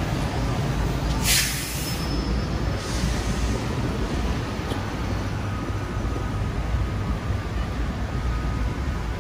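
Steady rumble of road traffic on a wet city street, with a short, sharp hiss about a second in and a fainter one shortly after.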